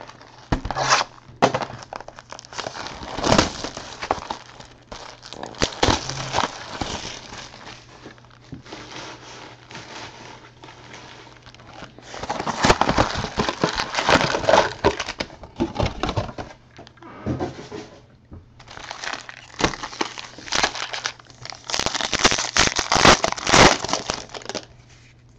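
Packaging being handled and opened: a trading-card hobby box lifted and opened, then its foil card packs crinkled and torn open in irregular bursts of rustling, heaviest in the second half. A steady low hum runs underneath.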